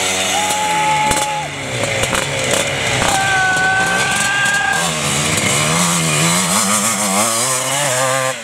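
Vintage enduro motorcycle engines revving hard on a steep dirt hill climb, their pitch rising and falling as the throttle is worked. More than one bike is heard at once, and now and then one holds a steady high rev for about a second.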